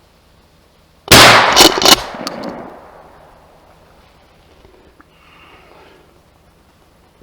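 A gunshot about a second in, with a second loud crack close behind it and a few smaller clicks trailing off over the next second or so.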